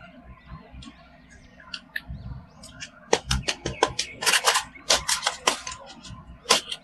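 Toy packaging being handled and opened: faint rustling, then a dense run of sharp crinkles and clicks from about three seconds in.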